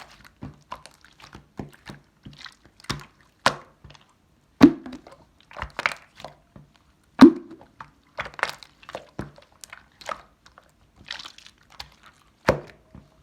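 Slime being squeezed and worked by hand, making irregular sticky clicks and pops, a few much louder than the rest.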